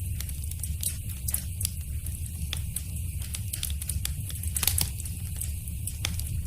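Wood fire in a fireplace crackling: irregular sharp pops and snaps over a steady low rumble of the flames, with a louder cluster of pops near the end.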